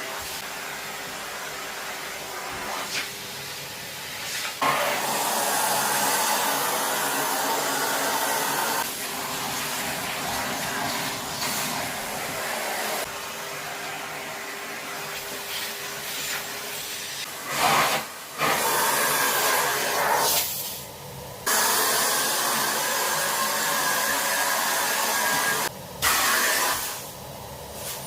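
Miele vacuum cleaner running steadily. Its rushing sound rises and falls as it is worked over surfaces, with several sudden drops and surges in the second half.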